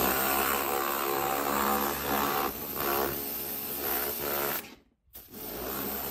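Pressure washer running: a steady motor-and-pump whine under the hiss of the water jet spraying a sneaker. It cuts out briefly about five seconds in, then starts again.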